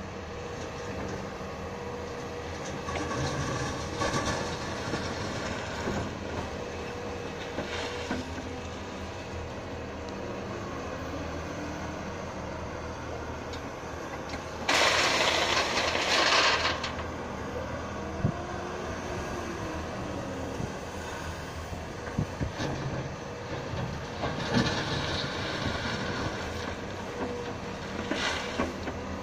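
Cat crawler excavator's diesel engine running steadily while it digs out railway track ballast, with the bucket scraping and clattering in the gravel now and then. About halfway through, a loud rush of about two seconds as a bucketload of ballast stones is poured into a dump trailer.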